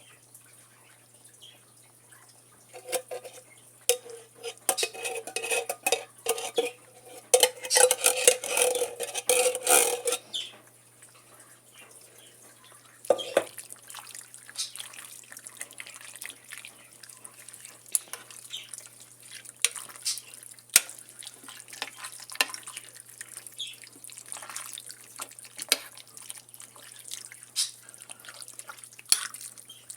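A spoon stirring and scraping through thick, creamy chicken and noodles in a crock pot, with wet squelches and clicks of the spoon against the pot. The stirring is loudest and busiest in the first third, then goes on as scattered clicks and knocks.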